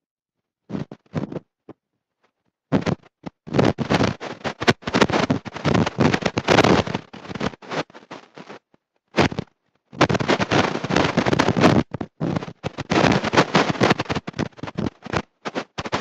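A man preaching, heard through badly distorted, crackling audio that drowns the words, cutting sharply to dead silence between phrases. The first seconds are mostly silent, with a longer break a little past halfway.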